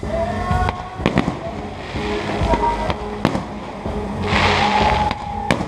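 Fireworks going off: several sharp bangs, and a burst of dense crackling about four and a half seconds in.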